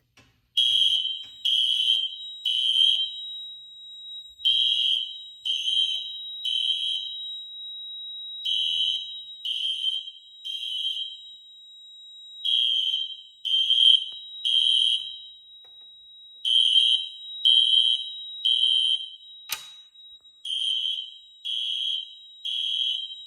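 System Sensor SpectrAlert Classic P24110 horn sounding the temporal-3 evacuation pattern, coded by the fire alarm panel: three short high blasts about a second apart, then a pause, repeating six times. It is in fire alarm after a smoke detector was set off. A faint steady high tone runs underneath, and there is a single click near the end.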